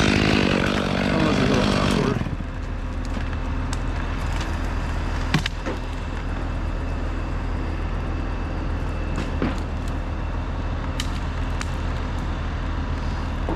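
A chainsaw running at full throttle through a cut, cutting off about two seconds in. A steady low engine rumble carries on underneath, with a few faint clicks.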